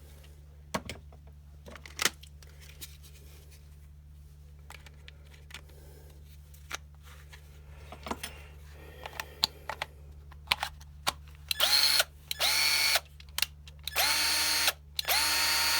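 HyperTough 20 V cordless drill run in four short trigger pulls, its motor whining up to speed each time, powered by a battery pack whose blown fusible link has just been bypassed, and now working. Before that come scattered clicks and knocks of handling.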